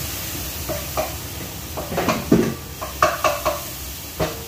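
Spatula stirring and scraping food in a hot frying pan, a run of short scrapes and knocks against the pan over a steady sizzle.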